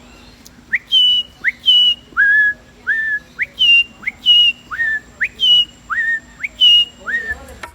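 Human whistled imitation of a melodious blackbird's song: a run of sharp upslurred whistles, roughly two a second, the later notes alternating between a higher and a lower pitch.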